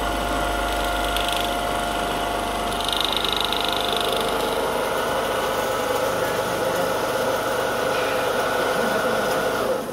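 Richpeace automatic template sewing machine stitching glove pieces. It runs steadily with a constant whine and stops abruptly at the very end.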